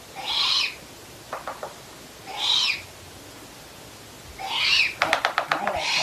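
An eagle owl giving harsh, hissing screech calls, each about half a second long and falling in pitch, one about every two seconds. Near the end a quick run of sharp clicks comes as it spreads and flaps its wings.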